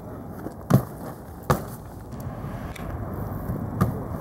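Wind buffeting the microphone, growing louder, with three sharp knocks, two of them close together about a second in and one more near the end.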